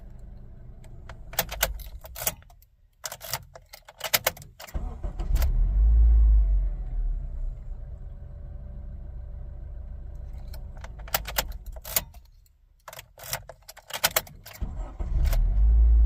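Engine switched off and restarted twice with the key: ignition clicks and keychain jangling, a moment of quiet, then the 2007 Honda Civic's four-cylinder engine cranks and catches with a loud surge before settling into a steady idle.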